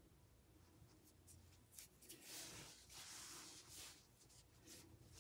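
Faint rubbing and rustling of yarn as a metal tapestry needle draws a yarn end in and out through crochet stitches, a little louder for about two seconds in the middle.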